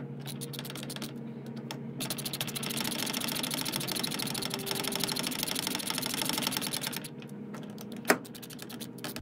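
Ratchet wrench clicking as the transmission mounting bolts are turned: scattered clicks, then a dense, rapid run of clicking from about two seconds in to about seven, then sparser clicks and one sharp metal knock about eight seconds in.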